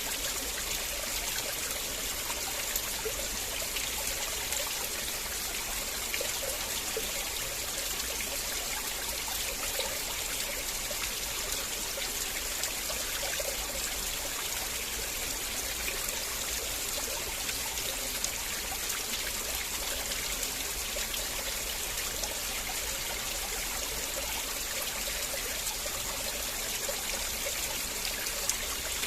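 River water flowing steadily, a constant rushing with small trickles and splashes.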